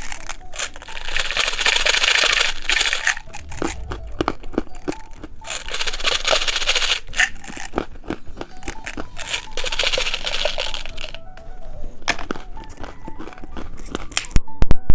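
Plastic candy wrapper crinkling and being torn open, in three long rustling stretches with small crackles and clicks between them. A few sharp, loud cracks come near the end.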